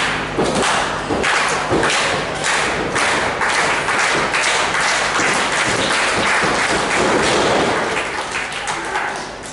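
Repeated heavy thuds over a steady din of crowd noise.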